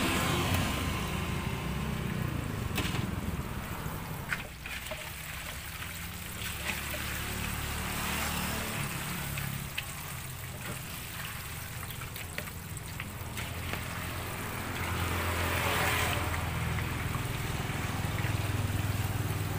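Batagor sizzling and bubbling in a wok of hot frying oil, with occasional clicks and scrapes of a metal spatula and wire strainer against the wok, over a low steady hum.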